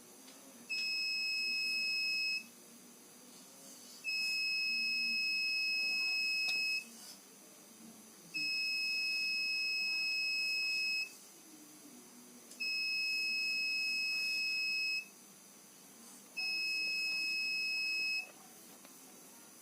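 12 V buzzer of a homemade laser-beam alarm sounding five times, each a steady high-pitched tone lasting about two seconds, with uneven pauses between. This is the alarm triggering each time the laser beam on its LDR light sensor is interrupted.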